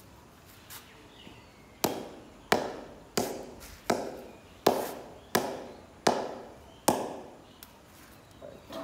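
Red leather cricket ball bounced repeatedly on the face of an English willow cricket bat: eight sharp knocks about two-thirds of a second apart, each ringing briefly, starting about two seconds in.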